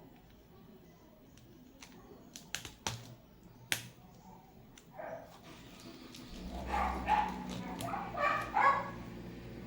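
Short yelping barks, a few at a time, the loudest cluster after the middle. A few sharp clicks come about three seconds in, and a steady low hum starts a little past the middle.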